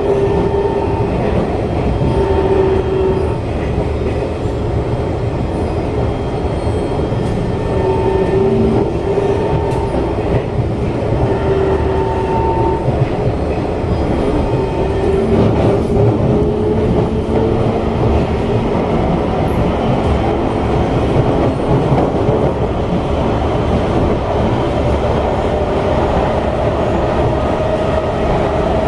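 Interior of an SMRT C151 metro train running between stations: steady rumble of wheels on the track with a wavering motor whine. Near the end the whine rises in pitch as the train picks up speed.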